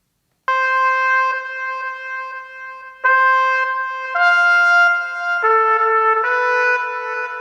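Soundbeam 6 music unit playing a trumpet sound: a run of about six held notes, one after another, each lasting a second or two, starting about half a second in.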